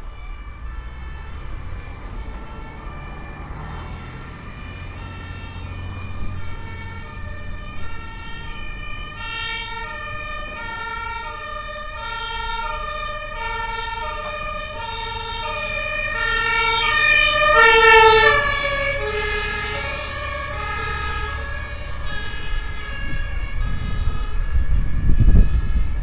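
German police two-tone siren (Martinshorn) alternating between a high and a low tone over city traffic rumble. It grows louder to a peak about two-thirds of the way through, its pitch dropping slightly as the vehicle passes, then fades. A heavy low rumble of passing traffic rises near the end.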